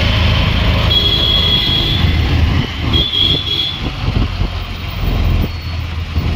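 Auto-rickshaw engine running as it drives through city traffic, heard from inside the open cab. Two short high-pitched horn toots sound, about a second in and about three seconds in.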